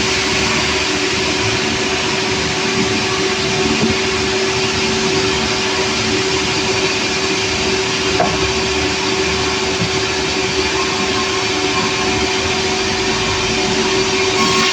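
Sawmill machinery running steadily: a loud, continuous drone with a constant hum.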